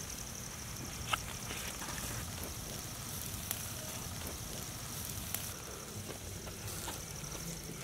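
Quiet outdoor night ambience: a steady high-pitched trill with a brief gap near the end, a low rumble, and a few faint clicks.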